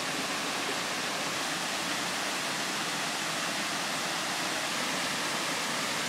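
Steady rush of a small waterfall cascading over rocks into a pool.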